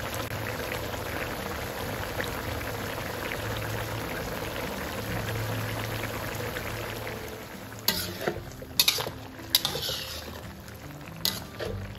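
Chicken curry simmering in a wok, its thick sauce bubbling steadily. From about eight seconds in, a metal ladle stirs it, knocking and scraping against the pan several times.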